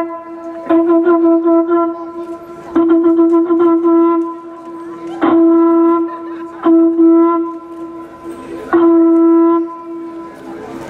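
Conch shell horn blown in repeated blasts of about a second each, with short gaps between them, all on one steady pitch.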